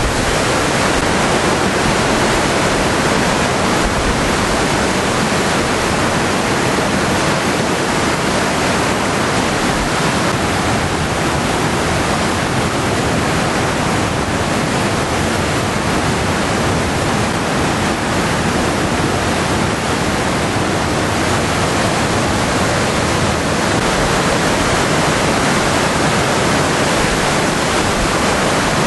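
Flash-flood runoff, thick with mud, rushing and churning through a desert wash: a loud, steady, unbroken rush of water.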